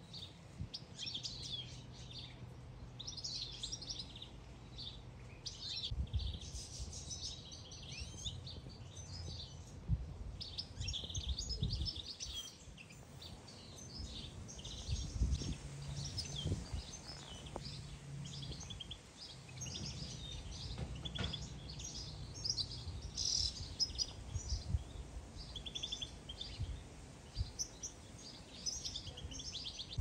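European goldfinches twittering: many short, high chirps in quick runs, over a low steady hum and occasional dull thumps.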